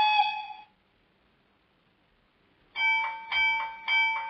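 Sound decoder of a Piko BR 141 model electric locomotive sounding its horn through the model's small loudspeaker. One short blast comes at the start, then after about two seconds three quick blasts follow close together.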